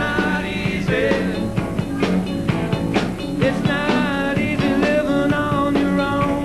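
Live rock band playing: electric guitars, drum kit and keyboards, with a wavering lead melody in the middle.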